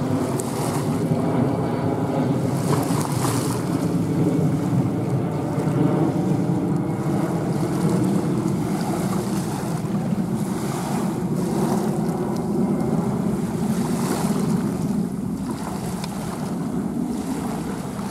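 Airbus A320-216's CFM56 turbofan engines at climb power on a departure overhead: a steady, deep jet roar with faint engine tones in the first second or two. The roar eases a little near the end as the airliner climbs away.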